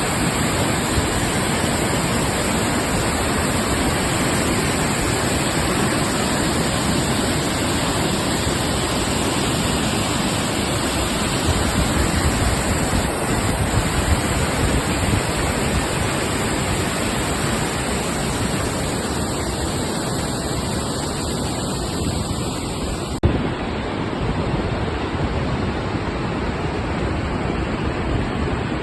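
Steady rush of the Vøringsfossen waterfall, a large waterfall falling some 145 m into a canyon. A short click about 23 seconds in, where the sound shifts slightly.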